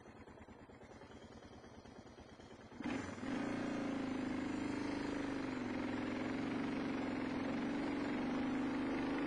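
Single-cylinder dual-sport motorcycle engine running at a steady, held throttle on a dirt trail. After a quieter stretch it comes in suddenly loud about three seconds in, its pitch wavering only slightly.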